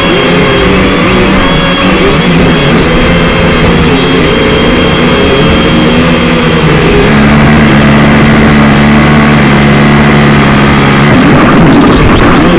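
Quadcopter drone motors and propellers whirring loudly close to the microphone, several tones wavering up and down as the motors adjust speed, then settling into a steadier hum about seven seconds in.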